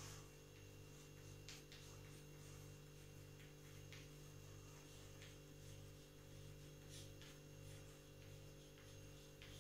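Near silence: a faint steady electrical hum, with a few faint light ticks of chalk on a blackboard as words are written.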